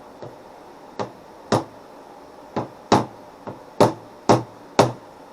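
Hammer knocking repeatedly: about nine sharp strikes at uneven intervals, each under a second apart, some louder than others.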